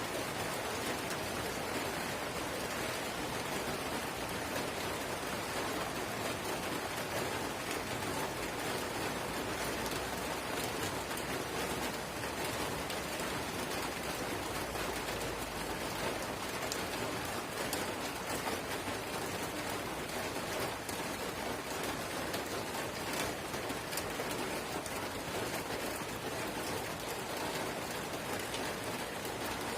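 Light drizzle falling steadily: an even patter of many small drops on surfaces.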